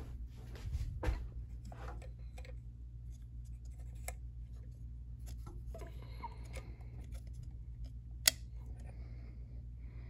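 Casablanca Delta II ceiling fan running with a steady low motor hum, overlaid with scattered light clicks and rustles, and one sharp click a little past eight seconds in.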